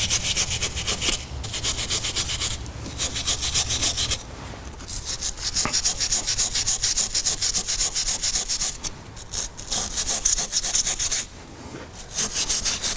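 Hand scrubbing of rust off the steel hub face of a brake rotor: rapid back-and-forth scraping strokes in several spells, with short pauses.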